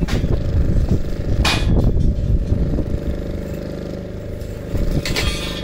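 An engine running steadily, with a few sharp knocks over it: near the start, about a second and a half in, and again near the end.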